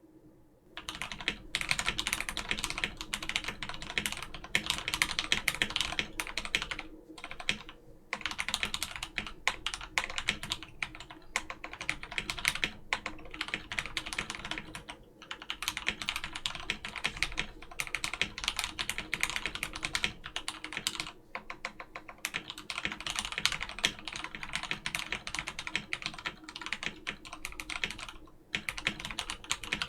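Typing on a Keychron C1 mechanical keyboard with Gateron Brown tactile switches lubed with Krytox 205g0, a steel plate and stock keycaps. A fast, continuous run of key clacks begins about a second in and stops briefly a few times.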